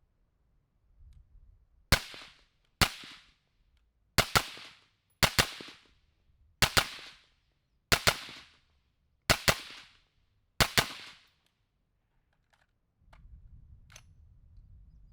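Suppressed rifle shots: eight sharp reports at a steady pace, roughly one every second and a quarter, most of them followed by a second crack a fraction of a second later. A few faint clicks and a low wind rumble come near the end.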